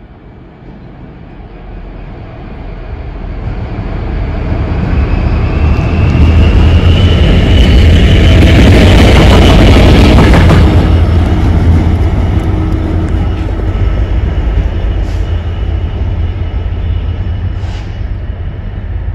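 Direct Rail Services locomotive passing through a station as a single engine with no train behind it. It approaches with a low drone and wheel noise, is loudest as it goes by about halfway through, then fades as it moves away.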